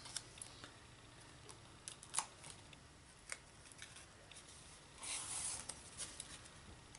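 Faint clicks and taps of small punched cardstock circles being handled and layered with foam adhesive dimensionals, with a short papery rustle about five seconds in as the pieces are pressed together.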